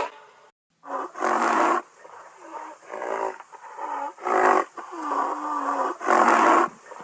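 Rhinoceros calling: a series of about six rough, noisy bellows in quick succession, the loudest a little after a second in, about four and a half seconds in, and near the end.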